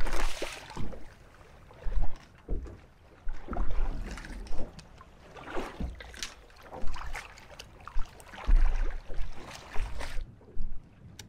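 Irregular splashing of water against a small boat's hull as a hooked blue shark thrashes at the surface while being unhooked, with wind rumbling on the microphone.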